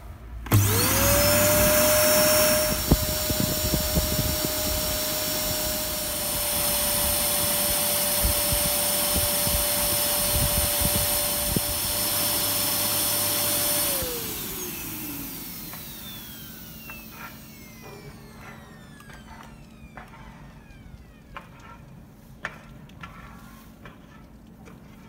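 Zelmer Elfa canister vacuum cleaner switched on, its motor whine rising quickly to a steady pitch with a rush of air, running for about thirteen seconds, then switched off and winding down with a falling whine. A few faint clicks follow.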